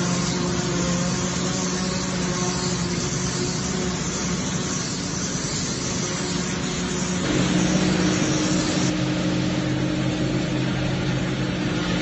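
Tractor diesel engine running steadily under load while its mounted forage harvester cuts and chops standing corn, with the whir and hiss of chopped crop being blown up the spout. The engine tone and level shift about seven seconds in.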